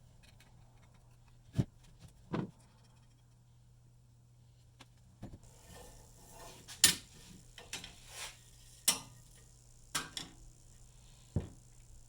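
Irregular sharp knocks and clicks, about nine of them, from tools and metal parts being handled on a workbench, with a faint hiss in the second half.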